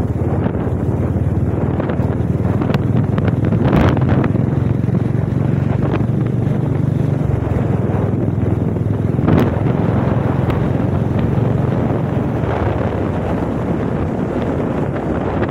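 Royal Enfield motorcycle engine running steadily at road speed, mixed with heavy wind buffeting on the microphone. There are a couple of brief sharp knocks, about 4 s and 9 s in.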